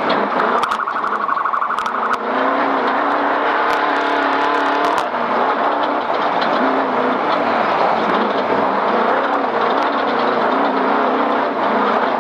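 Race car's engine running hard, its pitch climbing for a few seconds and dropping about five seconds in, then rising and falling with the throttle, with a few sharp knocks from the car crossing rough ground.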